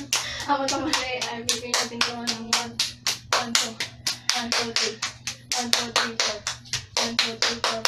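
Two players doing a fast hand-clapping game routine, clapping their own palms and then each other's in a quick steady rhythm of about four claps a second.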